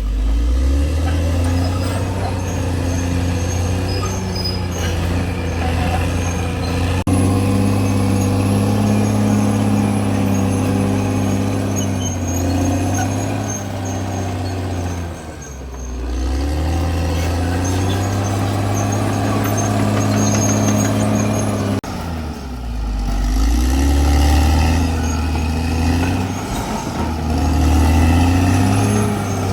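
Caterpillar D6R XL crawler bulldozer's diesel engine running hard while working, its pitch dropping under load and climbing back twice, about halfway through and again near three-quarters of the way.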